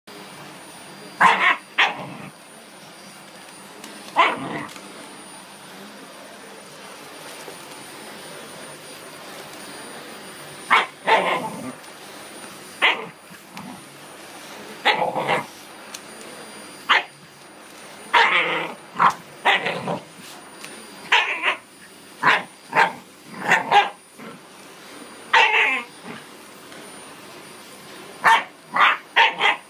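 Shiba Inu barking at a vacuum cleaner head in short, sharp barks. The barks are spaced out at first and come in quick runs of several in the second half.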